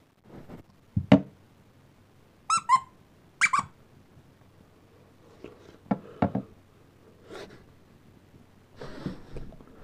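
Squeaker in a plush toy being squeezed: a few short squeaks that drop in pitch, in two groups about two and a half and three and a half seconds in. Sharp handling knocks come about a second in and again around six seconds.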